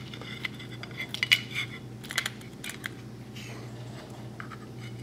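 Light metallic clicks and scraping as the parts of a GSG Firefly .22 LR pistol are handled: the recoil spring and guide rod are fitted against the slide and frame, giving scattered sharp ticks about a second in and again around two seconds in.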